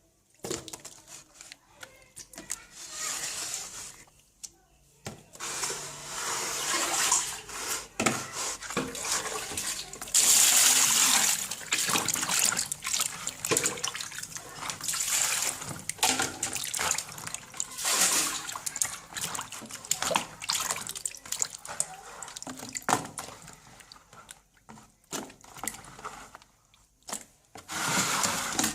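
Water running and splashing on and off in a sink, with scattered knocks and clicks.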